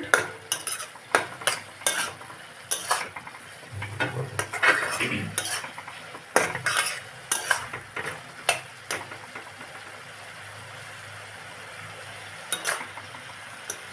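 A spoon stirring and scraping cauliflower filling in a pan, with irregular clinks against the metal, over a faint steady sizzle. The stirring stops about nine seconds in, leaving only the sizzle, then comes back briefly with a few clinks near the end.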